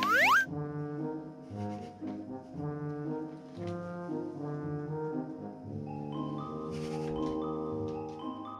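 Light background music with brass and mallet instruments. Right at the start, a quick rising whistle-like sound effect is the loudest sound.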